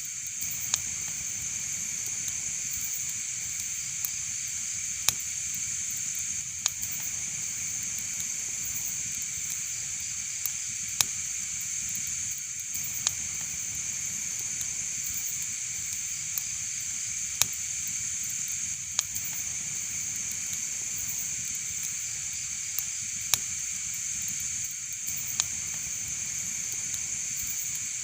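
Wood fire crackling: a steady hiss broken by sharp pops at irregular intervals, roughly one every second or two.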